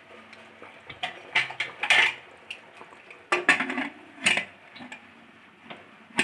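Metal lid of a Hawkins pressure cooker being fitted onto the pot: a series of short metal clanks and scrapes.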